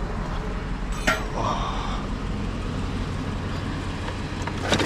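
Steady low hum of an idling vehicle engine, with a single knock about a second in and a clatter of items being handled starting at the very end.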